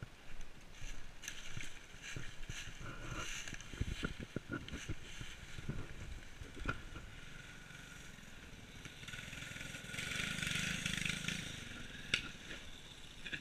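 Mini bike's small engine running at a distance, swelling louder for a couple of seconds near the end, with scattered knocks and crackles close by.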